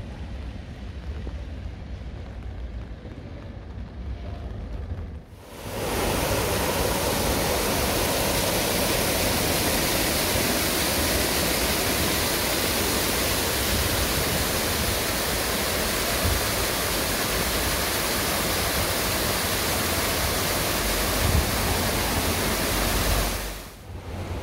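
Water from a public fountain pouring from overhead spouts and jets into a pool, a steady loud rush of splashing water that starts abruptly about five seconds in and cuts off near the end. Before it, quieter outdoor ambience with a low rumble.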